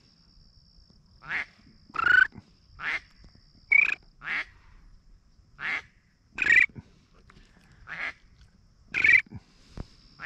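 Duck quacking: about nine short, separate quacks spaced roughly a second apart. A faint steady high-pitched tone runs underneath, dropping out for a few seconds in the middle.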